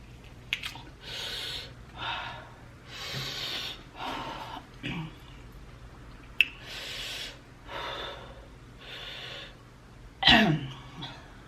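A person breathing hard in and out through the mouth, about one breath a second, panting against the burn of very spicy food. Near the end comes a loud cry that falls in pitch.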